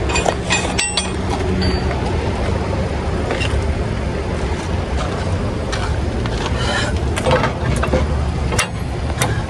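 Heavy steel spring bars of a weight-distributing hitch being handled, giving scattered metal knocks and clinks over a steady low rumble.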